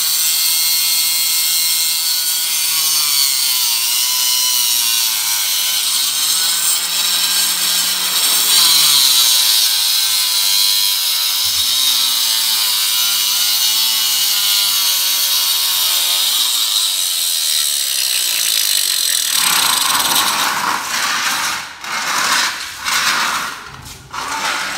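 Handheld electric marble cutter with a diamond blade cutting a wet marble floor strip: a steady, loud grinding hiss, its motor pitch rising and falling as the feed load changes. About 20 s in the steady cut ends, and the saw gives a few short bursts before falling quiet near the end.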